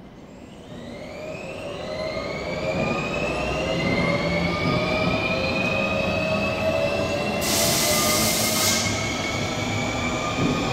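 GVB metro trains running through the station: a whine that climbs slowly in pitch and grows louder over the first few seconds, then holds steady, with rail rumble beneath. A short burst of hiss comes about seven seconds in.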